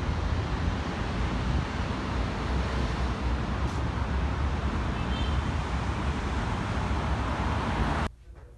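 Steady rumbling outdoor noise, like road traffic, that cuts off suddenly about eight seconds in.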